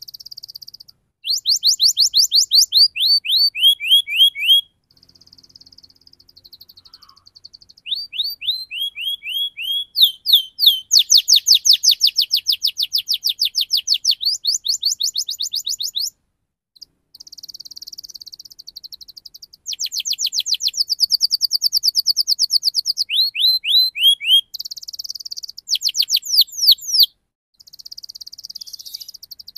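Domestic canary singing a fast rolling song: quick runs of falling chirps and tight rapid trills, broken by short buzzy passages and a few brief pauses.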